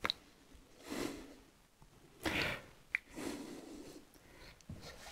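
Quiet breathing and sips from a coffee mug: a few short breathy sounds about a second apart, with two faint clicks.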